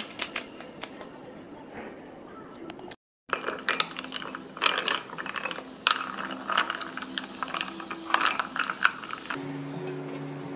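Wooden spoon stirring a drink in a ceramic mug, making quick irregular clicks and scrapes against the mug's sides. They are sparse at first and thicken after a brief silent gap about three seconds in. Soft music with held low notes comes in near the end.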